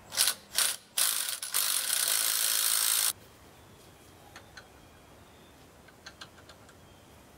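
Cordless impact driver turning the bolt at the end of a Kohler 14RESA generator's alternator rotor shaft: two short bursts, then a steady run of about two seconds that cuts off suddenly, followed by a few light clicks of the bolt being handled.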